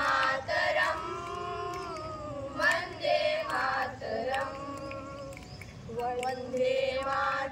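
A group of girls singing together in unison, in phrases of long held notes that slowly rise and fall in pitch.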